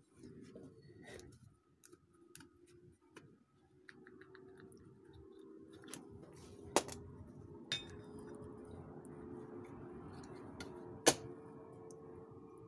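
Pliers and tools clicking and tapping against a small 3D-printed bullet mold as it is worked open to free a cast lead bullet. Three sharper knocks come about seven, eight and eleven seconds in, over a faint steady hum.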